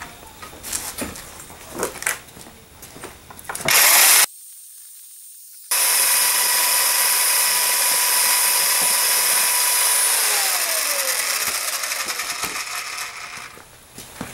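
Electric drill with a paddle mixer stirring liquid dye into the precast modifier in a plastic bucket. It runs at a steady whine, then the pitch falls as the drill is let off and spins down about ten seconds in. A short burst of the drill comes earlier, after some handling clicks.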